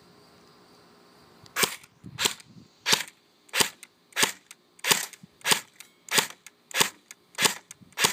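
Airsoft AK rifle firing single shots on semi-automatic. The shots start about a second and a half in and come at a steady pace of about three every two seconds, roughly ten in all.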